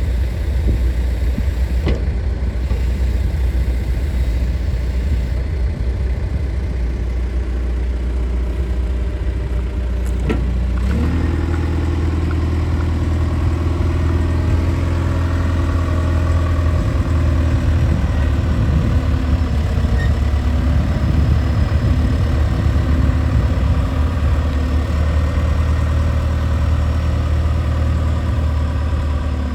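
John Deere 310G backhoe's four-cylinder diesel engine running steadily at low speed. About a third of the way in it revs up with a rising pitch and holds at the higher speed.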